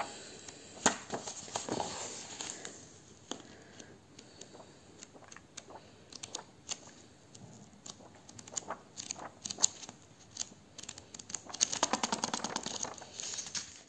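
Paper pages of a bound planner being leafed through and turned by hand: soft rustling and light page flicks, with a quicker run of flicks near the end.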